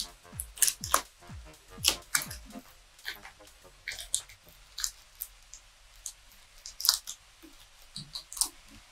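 Irregular sharp clicks and short scratches of small tools handling a phone, pulling at stuck adhesive tape. Electronic background music plays underneath, and its deep bass beats stop about two and a half seconds in.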